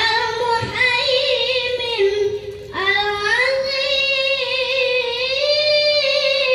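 A boy's melodic Qur'an recitation (tilawah) into a microphone: two long chanted phrases of held, ornamented notes with a wavering pitch, a short breath between them about two and a half seconds in.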